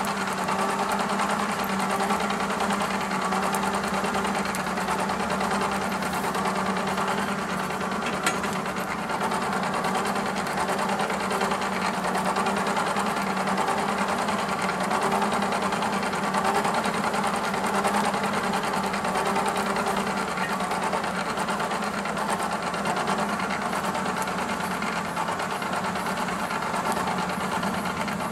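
Backyard forge running with a steady, unchanging hum, with one small tick about eight seconds in.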